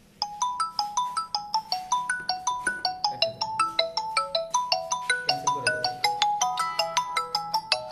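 Mobile phone ringtone: a quick, bright tune of short notes, about six a second, that starts abruptly and cuts off suddenly at the end.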